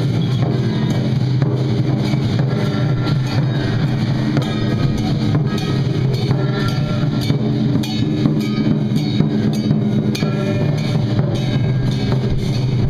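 Temple procession music: drums and percussion beating steadily under a loud melody, with gong and cymbal strikes throughout.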